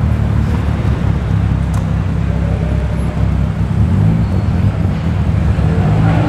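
Car engines running with a deep, steady rumble as cars drive past.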